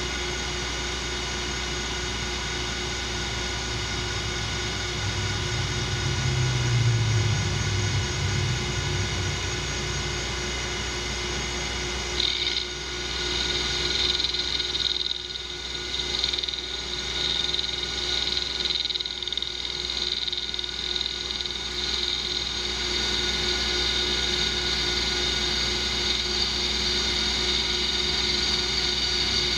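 Metal lathe running steadily with a hum and whine, turning an aluminium part with a carbide insert. About twelve seconds in, a higher hiss joins as the tool cuts and throws long stringy chips.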